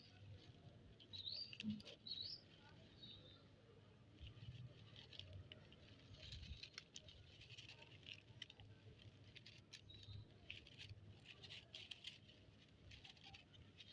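Faint pattering and scuffling of kittens' paws and claws as they play, with two or three short, high squeaks about one to two seconds in.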